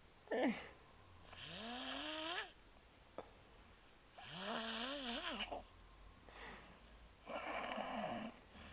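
A sleeping person snoring: a short snore, then three longer snores about three seconds apart. The first long snore rises in pitch and the next one wavers.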